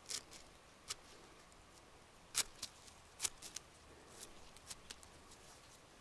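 Knife blade scraping and cutting along the stem of a freshly picked bolete mushroom, in about ten short, sharp strokes spaced irregularly.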